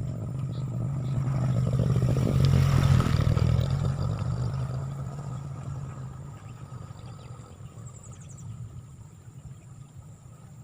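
An engine passing by: a steady hum that grows louder for about three seconds, then slowly fades away.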